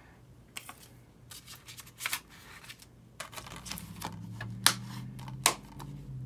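Plastic Blu-ray cases and discs handled on a wooden table: a run of clicks, taps and rustles, with two sharp clacks about four and a half and five and a half seconds in. A steady low hum comes in about halfway.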